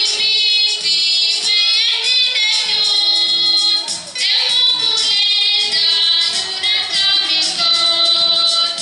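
A group of young female voices singing a church hymn together into handheld microphones, in long held notes, with a brief break between phrases about four seconds in.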